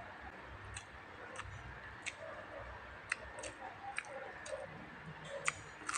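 Close-up chewing of a mouthful of rice and dried fish, with irregular sharp wet mouth clicks and smacks, one or two a second.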